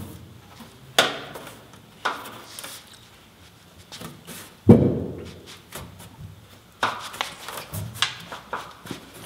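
A thin .050 3003 aluminium sheet being handled and shifted against a steel fabrication table: several separate knocks and thuds of the sheet flexing and bumping, each with a short ringing tail, the loudest about halfway through.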